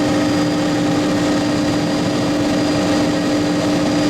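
Steady helicopter cabin noise in flight: an even engine and rotor roar with a constant droning tone, heard from inside the helicopter.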